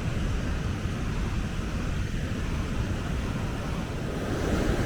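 Wind rumbling on the microphone over a steady outdoor wash of noise.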